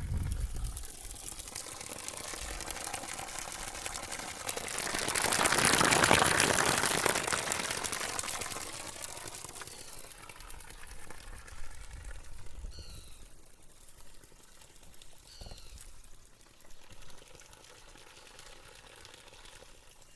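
Water running and splashing at a natural water source, a steady pouring, trickling rush that swells to its loudest about six seconds in and then eases off. A few short high chirps come through near the middle.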